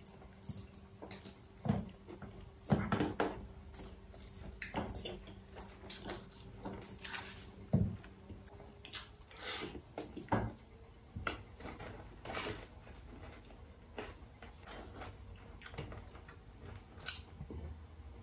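Close-up eating sounds of two people eating with their hands: irregular chewing, lip-smacking and crisp crunches, with small clicks of fingers and food against the plates.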